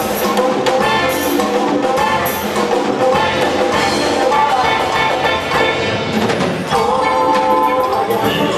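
Live African band music: drums and percussion beating steadily under sustained melody lines.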